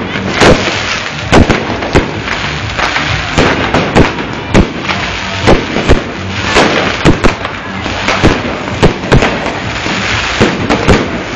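Fireworks going off: a string of loud bangs, about one or two a second at irregular spacing, over continuous crackling.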